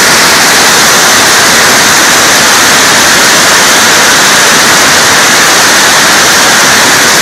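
Marble-sized hail drumming on a tin roof in a dense, steady, very loud roar with no let-up.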